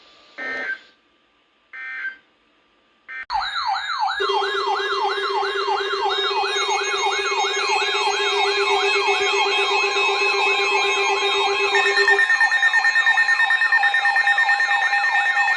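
Emergency Alert System end-of-message data bursts, three short buzzes about a second apart. After about three seconds they give way to a loud layered electronic siren: rapid rising sweeps about two and a half per second over a warbling high tone and steady tones, the lowest of which stops about three-quarters of the way through.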